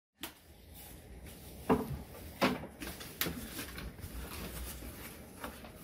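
A cardboard shipping box being cut open with scissors and handled, with a few sharp knocks and scrapes of cardboard.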